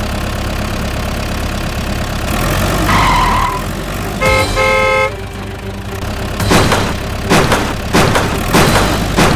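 Vehicle engine running with a steady low rumble, a horn honking twice about four and a half seconds in, then a series of sharp knocks or thumps near the end.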